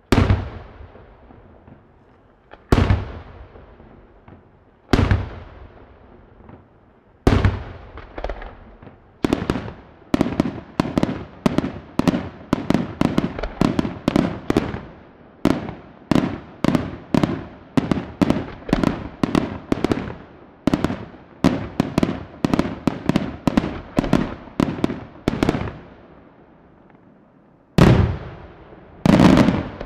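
Palmese Fireworks aerial shells bursting: four single loud reports a couple of seconds apart, each trailing off in a rolling echo, then a rapid volley of bursts at about two a second for some fifteen seconds. After a short lull, two more reports come near the end.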